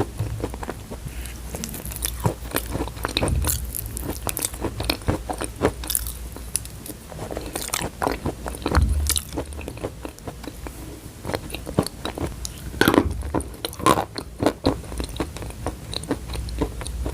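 Chalk being bitten and chewed close to the microphone: irregular sharp crunches throughout, with louder clusters about nine and thirteen seconds in.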